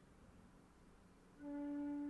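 Concert flute entering about one and a half seconds in with a single low note, held steady and strong in overtones, after a near-silent pause.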